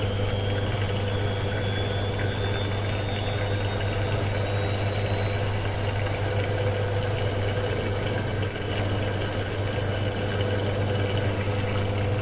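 Old washing machine spinning on its spin cycle: a steady motor hum with a high whine that rises slowly in pitch as the drum speeds up, then holds level for the last few seconds.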